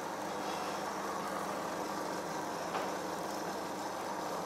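Electric blender motor running steadily, blitzing kimchi paste of garlic, ginger, chilli and stock, with one light knock about three seconds in.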